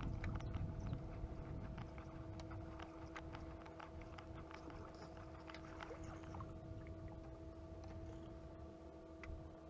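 Steady electric hum of a bass boat's trolling motor running, with scattered light clicks over it.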